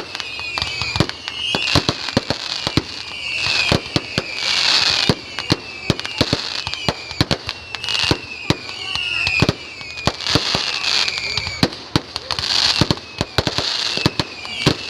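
Fireworks and firecrackers going off: a dense, irregular string of sharp bangs and pops with crackling hiss between them.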